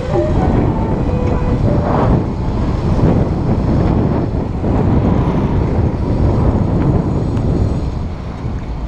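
Wind buffeting the microphone of a camera on a moving bicycle, a steady low rumble, with street traffic mixed in.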